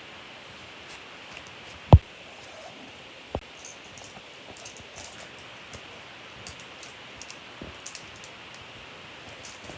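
Things being handled and set down over a steady hiss: one sharp knock about two seconds in, a softer knock a second and a half later, then scattered small clicks and rustles.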